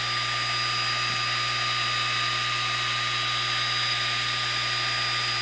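xTool D1 Pro diode laser cutter running a slow cutting pass: its air assist gives a steady rush of air, with thin steady whines on top.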